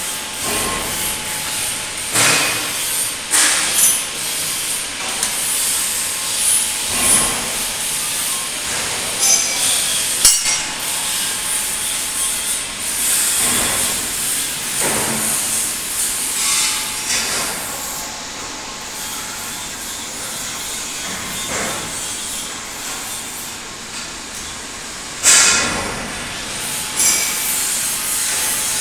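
Robotic arc welding: the arc's continuous crackling hiss, surging louder now and then, with a faint steady tone underneath.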